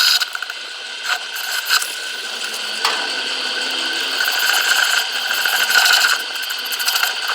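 Metalworking tool running steadily on a bronze bushing during its extraction, with a few sharp clicks.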